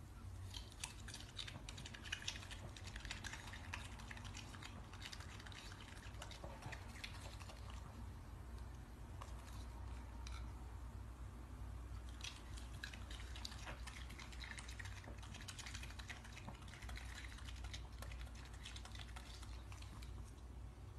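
Raccoon chewing cherries: faint, irregular wet smacking and clicking of its mouth, over a low steady hum.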